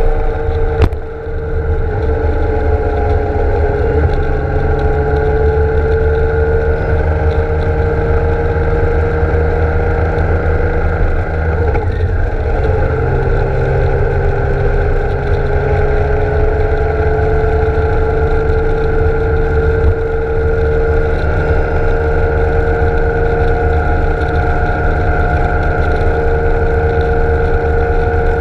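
BMW K1600 GTL inline-six engine running at a steady cruise, with wind rushing over the bike-mounted camera. The engine note drifts a little in pitch, falls briefly about twelve seconds in, then settles slightly lower.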